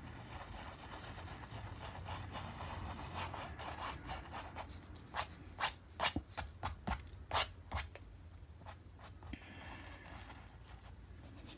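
Dry paintbrush scrubbing paint onto the painting surface, then a quick run of about ten short, sharp brush strokes in the middle, before softer rubbing again.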